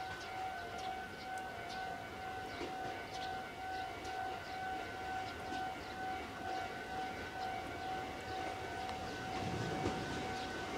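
A steady, high, siren-like tone holds throughout, with short high chirps scattered over it. The low rumble of the Kiya E195 rail-transport railcar rolling slowly in across the points grows louder in the last couple of seconds.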